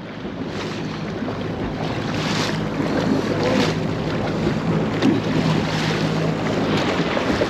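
Boat under way: a steady low engine hum under wind buffeting the microphone and water rushing past the hull, growing louder over the first few seconds.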